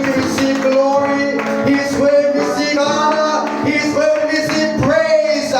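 Church worship music: a melody of long held notes over sustained chords.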